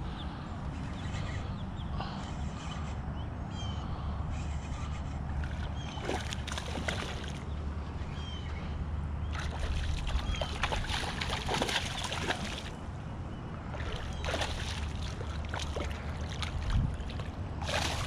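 A hooked bass splashing and thrashing at the water's surface while it is reeled in, in several bursts; the longest, about ten seconds in, is the fish jumping clear of the water. A steady low rumble of wind on the microphone runs underneath.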